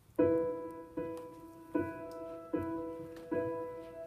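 Piano playing a song's introduction: a chord struck a little more than once a second, each one ringing and fading before the next.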